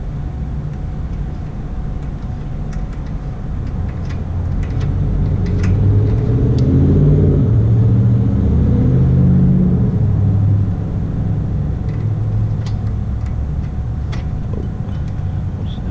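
Low motor-vehicle rumble that swells about halfway through and then eases off, with a few faint light clicks.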